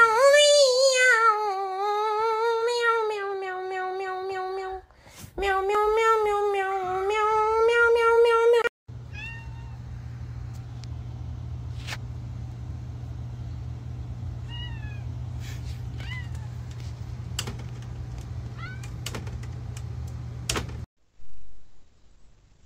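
A long-haired cat yowling in two long, wavering meows of several seconds each. After a cut comes a steady low hum with a few faint short chirps.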